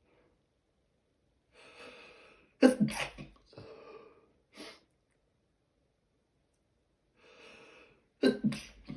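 A person sneezing twice in a sneezing fit, each sneeze preceded by a gasping in-breath. The first comes about three seconds in and the second near the end, which the uploader wonders may be the start of a cold.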